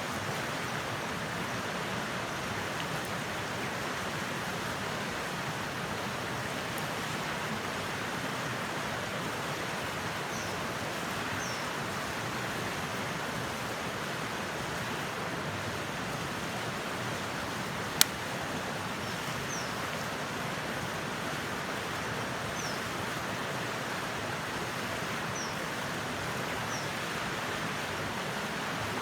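Steady rushing background noise with a single sharp pop of burning firewood a little past the middle, and a few faint, high, falling bird chirps.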